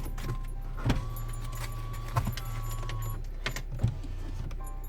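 Car engine idling, heard from inside the cabin as a steady low hum. Four sharp clicks and knocks come over it, spaced about a second apart.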